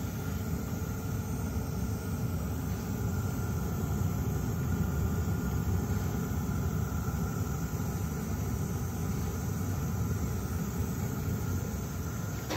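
Webasto Airtop 2000 diesel air heater running steadily as it warms up, heard from inside the closed car cabin: a low, even rumble with a faint steady high whine over it.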